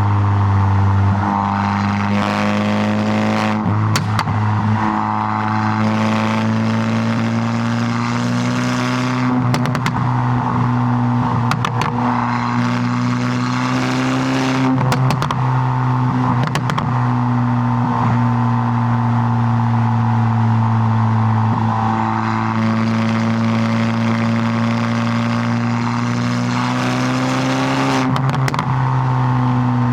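Modified MK8 Volkswagen GTI's turbocharged 2.0-litre four-cylinder, heard through a Milltek downpipe and cat-back exhaust while driving. The engine note mostly holds steady, climbs slowly in pitch and drops back a few times, with scattered sharp knocks.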